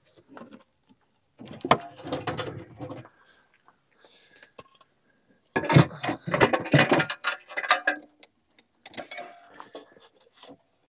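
Metal hardware on a truck camper's rear entry, the door and the fold-out step, being worked by hand: three bouts of clattering clicks and knocks with short pauses between.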